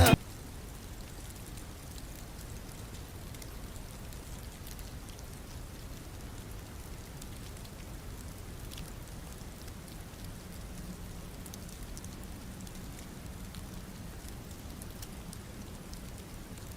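Steady light rain pattering, with scattered faint ticks of drops; a faint low hum joins about ten seconds in.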